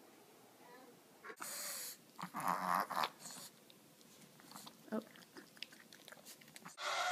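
Small dog vocalizing, starting about a second in: a wavering cry, loudest between two and three seconds in, followed by a few fainter short sounds and clicks.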